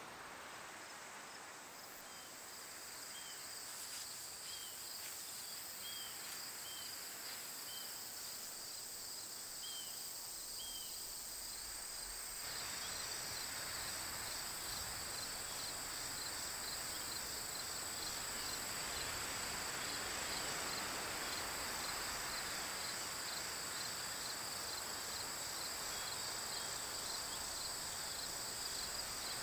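Meadow insects, crickets and the like, trilling steadily in even pulses, with a few short high chirps in the first several seconds. About twelve seconds in, the background noise grows fuller and the insect pulsing becomes more distinct.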